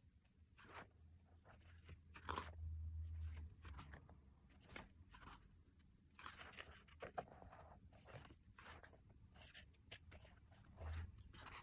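Pages of a photo book being turned by hand: faint paper swishes and rustles, with a quicker run of riffled pages about six seconds in.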